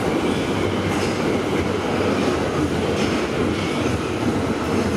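Tokyo Metro subway train approaching the platform through the tunnel, a steady rumble of wheels on rails.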